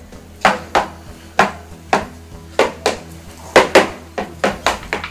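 Hard plastic toy pieces from a Play-Doh playset knocking and clacking together, about a dozen sharp knocks at an uneven pace, some in quick pairs.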